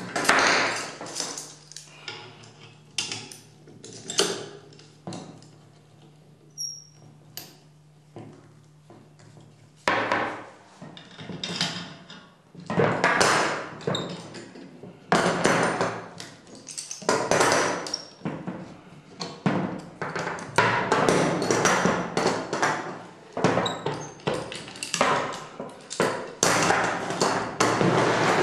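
Metal bar clamps clanking and knocking against each other and the bench as they are tightened onto glued bentwood rings. After about ten seconds the clatter grows dense as the clamps are loosened, pulled off the rings and dropped onto a pile.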